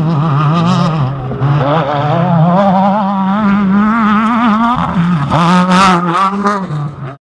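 Off-road race vehicle's engine running hard, its pitch wavering and stepping up and down as the throttle comes on and off. The sound cuts off suddenly near the end.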